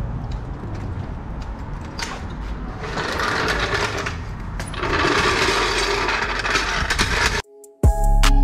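Floor jack being rolled by its handle across concrete, its wheels rattling and clicking steadily. It stops suddenly near the end and music starts.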